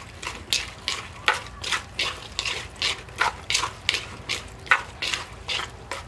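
Pink plastic spoon stirring and tossing a wet chopped salad in an earthenware mortar: repeated swishing, scraping strokes, two to three a second.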